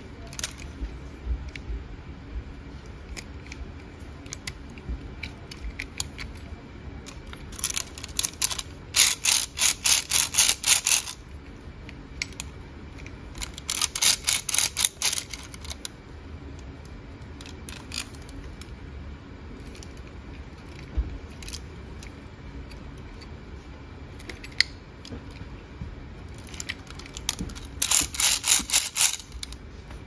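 A toy crawler excavator being handled, its moving parts clicking in quick rattling runs three times: about eight seconds in, around fourteen seconds, and near the end, with scattered single clicks and handling knocks between.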